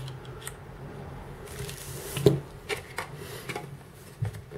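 Hands handling a vape pod device and its cardboard packaging: soft rustling with a few light clicks and taps, the loudest a little over two seconds in.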